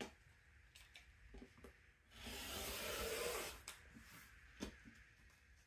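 Rotary cutter blade rolling through fabric along a quilting ruler onto a cutting mat: one steady hissing cut lasting about a second and a half, near the middle. A few light clicks follow as the tool and ruler are handled.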